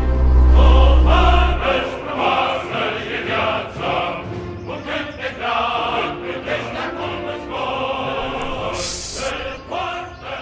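Music with a choir singing. A deep low rumble runs under it for the first two seconds, and a short hiss comes near the end.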